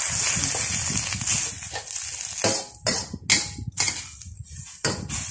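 Bitter gourd leaves sizzling in a hot steel wok while a metal ladle stirs them, scraping and knocking against the wok several times.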